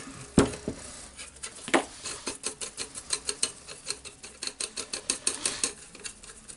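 Light metallic clicking and ticking as steel nuts on the Hilti TE1000-AVR demolition hammer's housing are worked loose with a wrench and fingers: two sharper clicks, then a quick run of small ticks lasting a few seconds.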